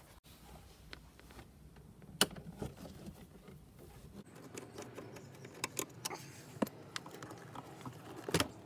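Scattered light clicks and taps from hands and a small tool working plastic dashboard trim and clips. One sharp click comes about two seconds in, and the clicks come more often in the last few seconds.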